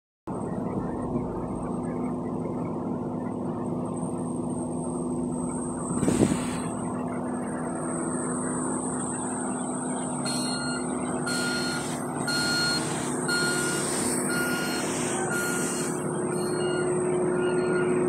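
HD 99 tandem road roller's diesel engine running steadily while compacting fresh asphalt, with one thump about six seconds in. From about ten seconds in, a reversing alarm beeps at an even pace, a little faster than once a second.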